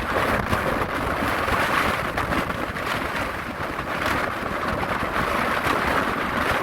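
Storm-force wind buffeting the microphone over heavy surf crashing on a rocky shore, a steady loud rush with a low rumble beneath.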